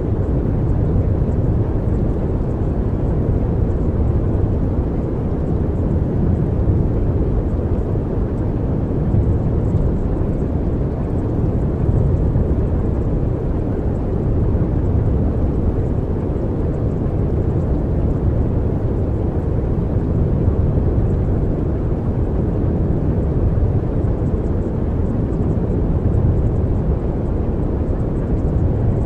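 Steady low rumbling noise, even and unbroken, with no pitch, beat or sudden sounds.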